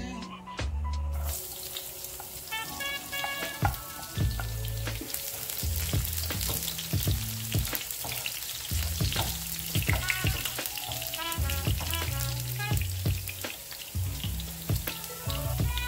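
Chopped garlic sizzling in hot olive oil in a frying pan, the sizzle starting about a second in as the garlic hits the oil, stirred with a wooden spatula. Background music plays along.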